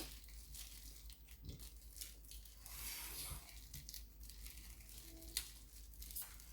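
Close-up eating sounds from a plate of spicy steamed seafood with crab and shrimp: faint crackling and tearing with scattered small clicks, as shells are handled and food is chewed.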